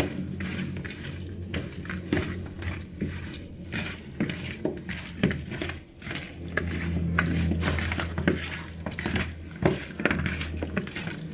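Hands mixing raw chicken pieces with dry spices in a plastic bowl, making short, irregular squishing and slapping sounds. A low steady hum joins about six seconds in.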